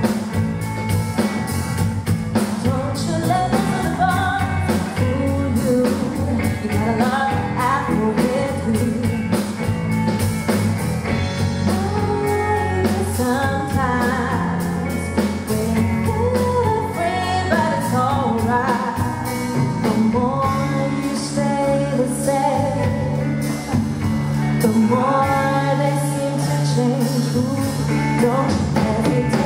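Live band performance: a woman singing lead into a microphone, backed by electric guitar, bass guitar and drum kit.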